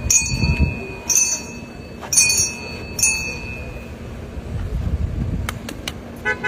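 Vehicle horns tooting about once a second over a low traffic rumble, with a different, fuller-toned horn sounding near the end.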